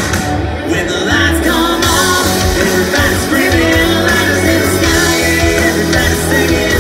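A live rock band playing loud, with electric guitars, drums and sung vocals.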